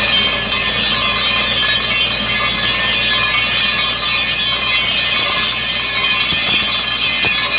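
Borewell drilling rig blowing muddy water up out of the borehole with compressed air, the water gushing and spraying from the top of the casing: a loud, steady rush.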